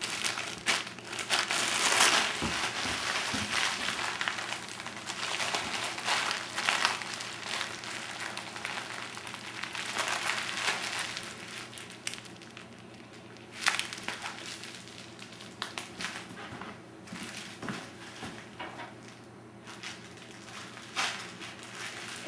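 Plastic air-pillow packing bags being crushed and crumpled: continuous crinkling of the thin plastic film with scattered sharp crackles, louder about two, ten and fourteen seconds in.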